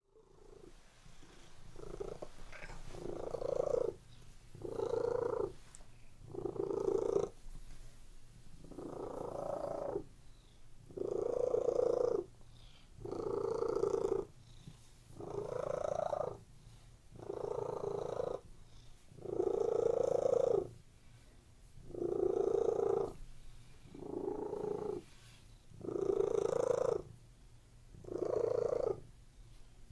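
Tabby-and-white domestic cat purring, resting with its eyes half-closed. The purr rises and falls with its breathing, getting louder roughly every two seconds.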